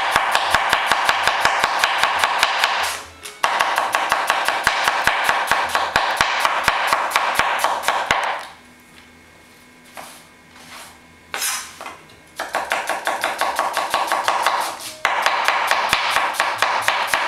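Background music, with a cleaver slicing an onion thinly on a wooden cutting board: rapid, evenly spaced knife strokes. The music drops out about eight seconds in, leaving only the knife, and comes back about four seconds later.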